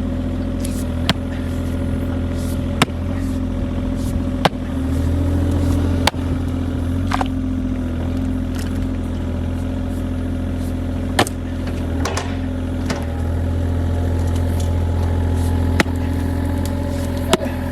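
John Deere 35G mini excavator's diesel engine running steadily at a low, even speed. Sharp knocks come every few seconds above it.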